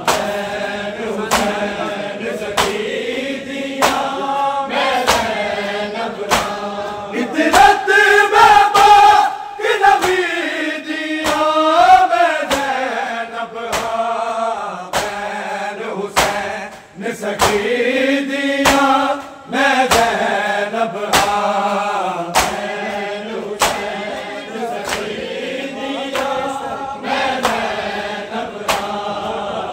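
Male reciters chanting a Punjabi noha, a Shia mourning lament, in a loud, drawn-out melody. A crowd of mourners beats their chests in unison under it: sharp slaps at an even beat of a little over one a second.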